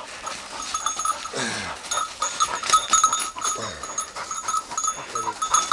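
Hunting dog's collar bell jingling irregularly as the pointer or setter moves about, with a few short falling voice-like sounds.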